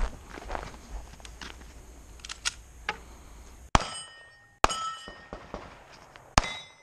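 Three pistol shots, the second about a second after the first and the third after a longer pause. Each is followed by the ringing of a steel plate target being hit.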